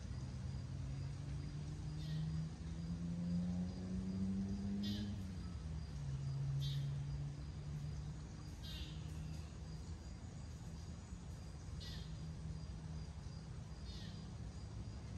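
A distant engine drones steadily. Its pitch rises a little over the first few seconds, then drops and fades after about five seconds. A small bird gives a short, high, falling chirp roughly every two seconds.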